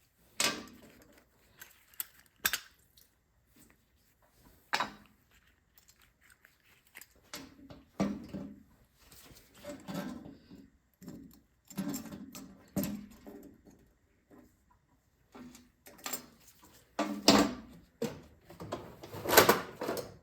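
Intermittent clicks, clinks and clatter of hand tools and small metal parts as a Tecumseh small-engine carburetor is taken apart and its bowl bolt, which is also the main jet, is removed. There are a few isolated sharp clicks at first, then busier handling noise, loudest near the end.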